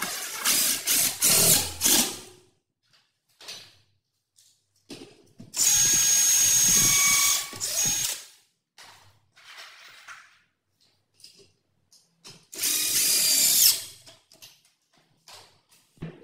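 DeWalt cordless drill-driver driving long screws into the edge of a laminated wardrobe panel, running in three bursts of one to two and a half seconds with a steady motor whine and short pauses between.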